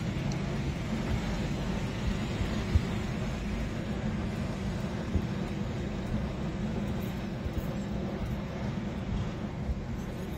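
Container freight train rolling steadily across a stone viaduct, heard at a distance as a low, even rumble.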